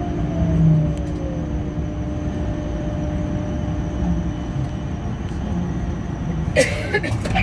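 Lille VAL rubber-tyred automatic metro in a station: an electric drive whine falling in pitch as a train slows, over a steady low rumble. A short sharp noise comes near the end.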